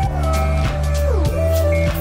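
Background music with a steady beat of about two strokes a second, held bass notes and gliding melody tones.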